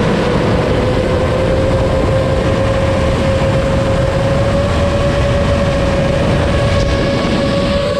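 FPV racing quadcopter's electric motors whining at a steady pitch that creeps slightly upward, over heavy wind rush.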